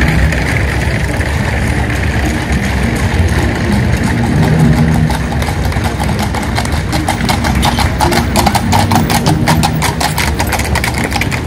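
A vintage car's engine running steadily. From about halfway through, horses' hooves clop on cobblestones in a quick, dense run of clicks as a two-horse carriage passes close by.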